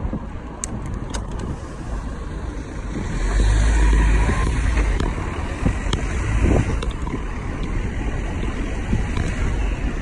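Wind rumbling on the microphone of a bicycle riding along a city road, mixed with road and traffic noise; the rush swells loudest about three seconds in and eases back after about two seconds.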